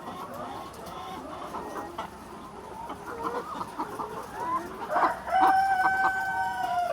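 A flock of laying hens clucking and chattering, many short calls overlapping. About five seconds in, one bird lets out a long call held at a steady pitch, the loudest sound here.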